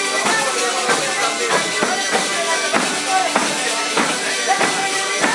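Salento pizzica played live on several tamburelli, the jingled frame drums, keeping a quick, steady beat of several strikes a second, with voices singing over it.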